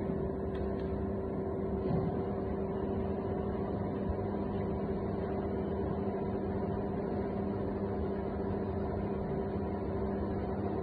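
A 30 kg spiral dough mixer running with its bowl empty: a steady motor hum with two even tones.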